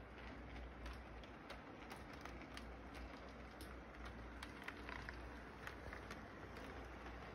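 Electric model train running on its track: a faint mechanical hum with frequent, irregular light clicks.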